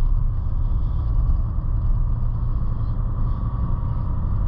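A car's engine running with a steady low rumble.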